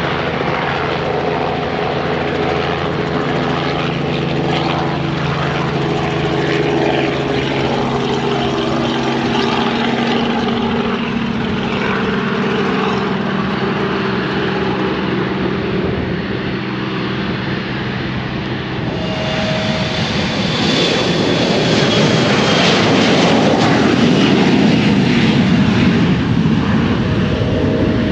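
Airplane engines at an airport: a steady hum of several engine tones, then about two-thirds of the way in a louder, rougher roar builds up and holds.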